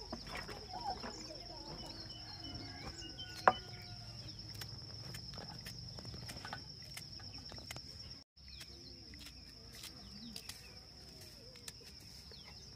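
Soft clicks of a large kitchen knife slicing okra pods held in the hand, the slices dropping into a metal basin of water, with one sharper click about three and a half seconds in. A steady high insect trill runs underneath and cuts out briefly about eight seconds in.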